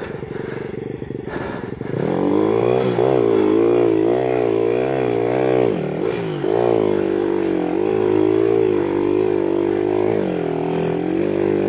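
Monkey bike's small single-cylinder engine running, then revving louder about two seconds in, the revs rising and falling repeatedly as the bike struggles for traction.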